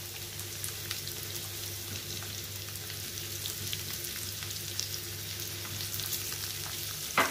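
Sliced onions, green chillies and curry leaves sizzling in hot oil in a nonstick wok: a steady fine crackle over a low hum. There is a single sharp knock near the end.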